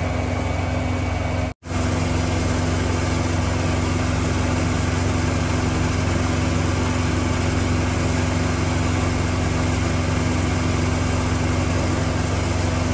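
Semi truck's diesel engine idling steadily. The sound cuts out for an instant about a second and a half in.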